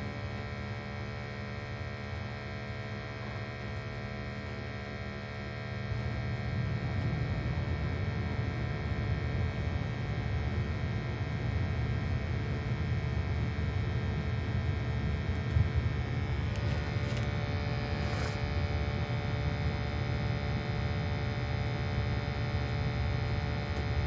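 Lennox gas furnace running under a combustion test: a steady motor hum with many even tones over a low rumble, which grows louder and fuller about six seconds in. One short tap about two-thirds of the way through.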